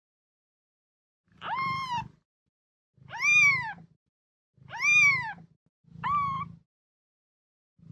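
A very young kitten mewing four times, each cry about a second long, rising then falling in pitch, with short gaps between them.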